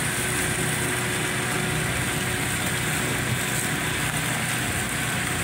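An engine idling steadily: a continuous mechanical hum with a faint steady tone that fades out near the end.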